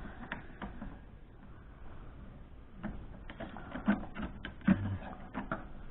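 Screwdrivers and Torx drivers clicking and knocking against each other and the toolbox as they are handled, a few light taps at first, then a cluster of knocks in the second half.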